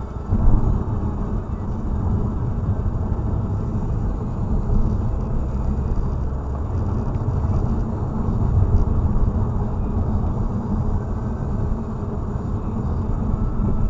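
A car driving along an open road, heard from inside the cabin as a steady low rumble of tyres and engine.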